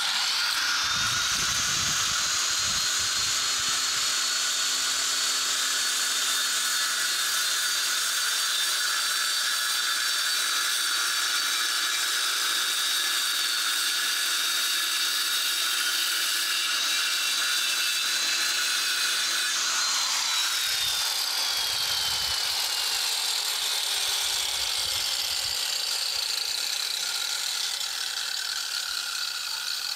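Angle grinder trimming a brick: a steady high motor whine over a grinding hiss. About two-thirds of the way through the whine dips and then slides slowly lower in pitch.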